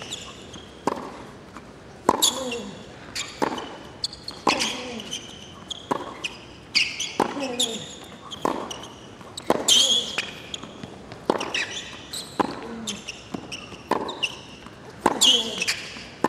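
Hard-court tennis rally: racket strikes on the ball about once a second, each with a player's short grunt falling in pitch, and high shoe squeaks on the court between shots.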